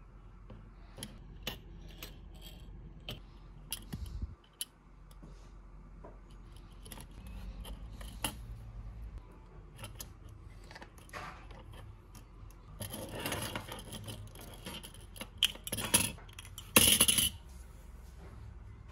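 Small hard parts handled on a workbench: scattered light clicks and taps, a stretch of rubbing or scraping about two-thirds through, and a louder brief scrape near the end.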